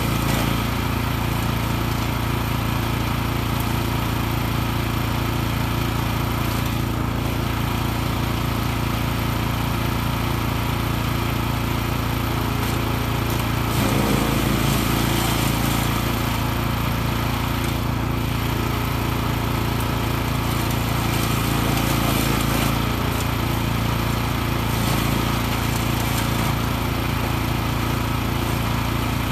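A 14 hp wood chipper's single-cylinder petrol engine running steadily at working speed. About halfway through, its note wavers briefly and gets a little louder, then settles again.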